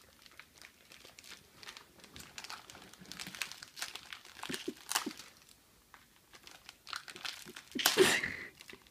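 Crinkling and crackling of a sealed plastic candy wrapper being bitten and twisted by hand in a struggle to tear it open, with scattered crackles and a louder burst about eight seconds in as it is yanked hard.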